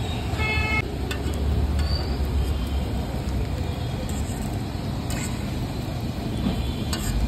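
Street traffic rumbling steadily, with a short high-pitched beep about half a second in and a few faint clicks.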